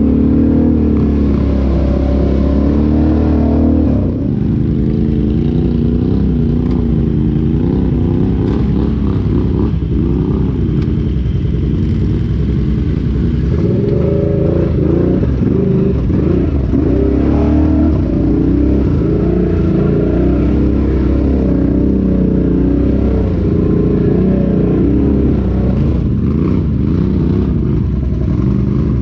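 Side-by-side UTV engine running under way off-road, its revs rising and falling continuously as the throttle works, with some rattling.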